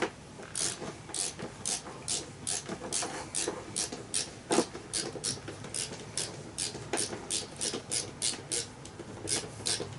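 Hand screwdriver turning a screw into the scooter's floor panel while a step plate is fitted, a short sharp rasp with each twist in an even run of about two and a half a second.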